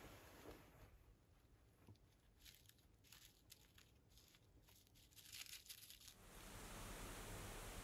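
Near silence with faint crinkling and rustling handling noise inside a small wooden hunting blind, about two and a half to six seconds in, then a steady faint hiss.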